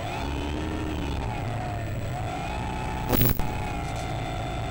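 Electric motor and propeller of an FMS 1400mm Spitfire RC model, heard from its cockpit, whining with the pitch rising at the start, then dipping and coming back up about two seconds in as the throttle changes, over a low rumble. A sharp knock about three seconds in.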